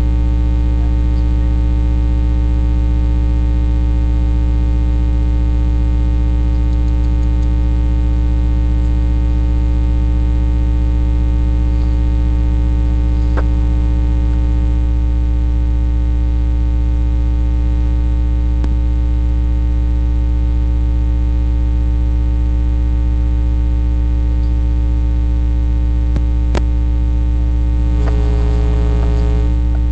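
Loud, steady electrical mains hum with a stack of evenly spaced tones, unchanging throughout, with a few faint clicks.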